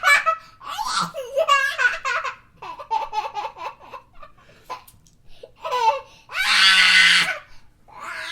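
Baby laughing in repeated bursts of quick, high-pitched giggles, with a loud breathy squeal about two-thirds of the way through.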